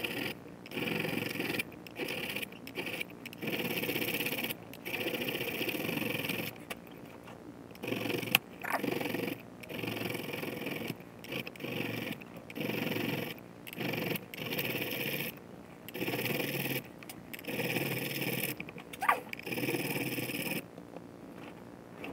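A file scraping back and forth over stainless steel frets in long strokes, about one a second with short pauses, dressing the frets toward the end of the fretboard. There is one sharp click about eight seconds in, and the strokes stop near the end.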